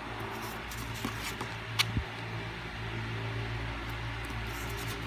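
Photo postcards being handled and turned: a few light paper rustles and clicks, with a sharp snap and a soft thud about two seconds in, over a steady low hum.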